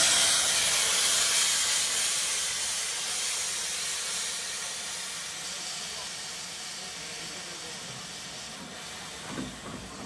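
Steam hissing from beneath a standing BR Standard Class 9F steam locomotive, loudest at first and fading gradually.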